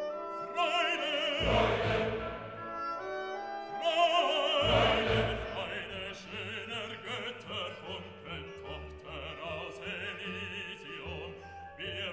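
Classical background music, its melody notes wavering with vibrato.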